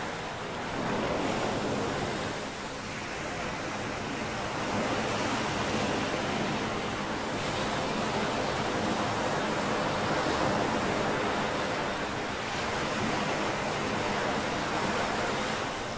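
Ocean surf breaking and washing up a beach: a steady rush that swells and eases slowly.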